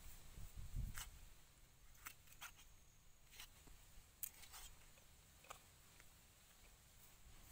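Faint, irregular taps and clicks of a large kitchen knife cutting squid on a wooden chopping block, with a couple of dull low thumps in the first second.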